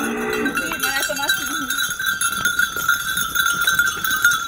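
Bells on a herd of goats jingling continuously as the goats run, with a brief wavering call in the first second or so.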